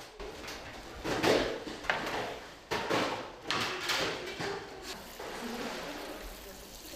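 Wooden paddle stirring and tossing shredded cabbage and carrot in a large stainless steel mixing kettle: several irregular scraping swishes.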